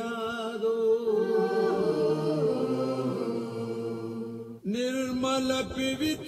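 Chanted vocal music in long, held notes, with a short break about two-thirds of the way through before a new phrase begins.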